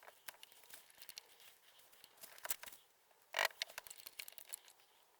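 Faint scattered clicks and small crackles of things being handled, with a short louder rustle about three and a half seconds in.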